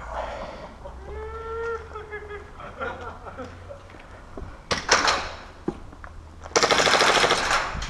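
Airsoft gun firing a rapid full-auto burst of a little over a second near the end, after a few sharp single cracks around the middle. A distant voice calls out about a second in.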